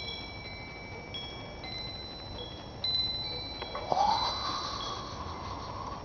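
Wind chimes ringing, with several high notes at different pitches struck at uneven moments, each ringing on. About four seconds in, a louder sound rises in pitch and then holds for about two seconds.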